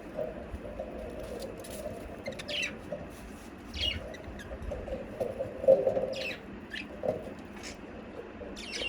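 Budgerigars chirping and chattering: short downward-sliding chirps every second or two over a constant lower chatter, with one louder burst of chatter about two-thirds of the way through.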